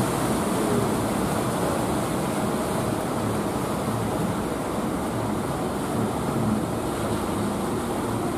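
Steady noise of sea surf breaking and washing on the shore.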